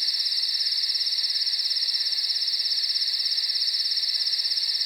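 Crickets trilling at night: one steady, high, fast-pulsing trill that holds at an even level.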